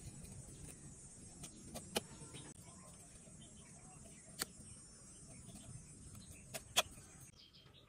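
Faint handling noise of string and rubber tubing being tied onto a bamboo slingshot handle: five sharp clicks, the loudest near the end, over a steady high hiss that stops abruptly near the end.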